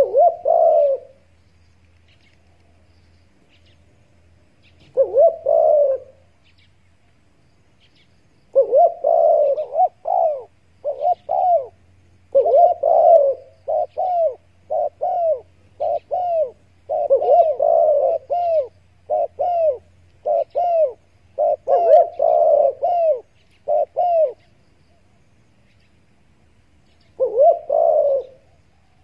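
Spotted doves cooing in phrases of repeated coos: one phrase at the start, another about five seconds in, then a long dense run of closely spaced coos lasting some fifteen seconds, and a last phrase near the end.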